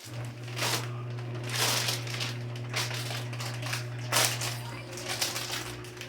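A spoon scraping and stirring through a pot of creamy mixture in short strokes, about one a second, over a steady low hum that comes on right at the start.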